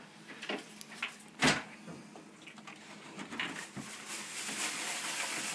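A few knocks and clunks from handling the full-tower PC case, the loudest about one and a half seconds in. A steady hiss grows in the second half.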